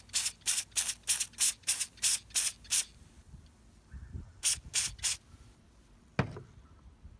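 Aerosol can of paint stripper sprayed in short hissing spurts, about three a second, for nearly three seconds, then three more spurts a little later. A single knock near the end.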